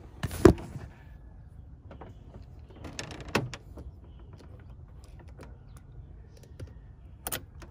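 Hose clamp pliers working the spring clamp on a coolant hose, making scattered metal clicks and scrapes. There is a sharp knock about half a second in and a louder cluster of clicks around three seconds and near the end.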